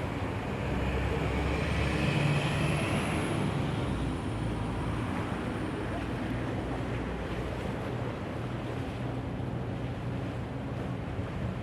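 An engine running steadily over a wash of noise, swelling a little about one to four seconds in.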